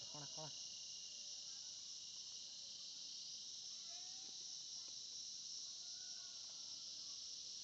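Steady high-pitched insect chorus, an even unbroken buzz, with a few faint short calls over it.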